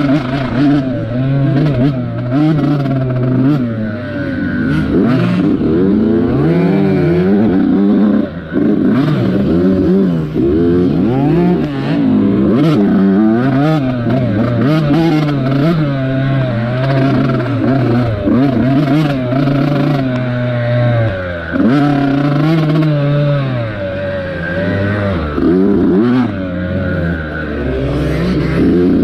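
Dirt bike engine heard from on board, revs rising and falling over and over as the rider works the throttle and gears, dropping off throttle briefly twice. Knocks and rattles from the bike over rough ground run through it.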